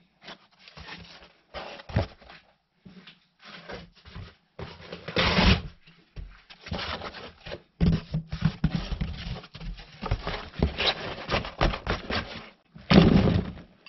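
Corrugated cardboard sheets rustling and scraping in irregular bursts as they are laid into a plastic bin and pressed down by hand.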